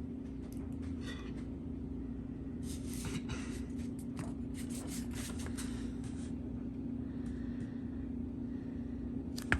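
Paper rustling and crackling as an owner's manual is handled and its pages turned, over a steady low hum, with a sharp click near the end.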